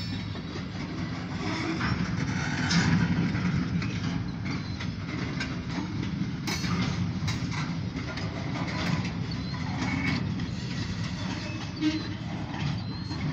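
Freight train of covered grain hopper cars rolling slowly by: a steady low rumble with scattered clanks and clicks from the wheels and couplings.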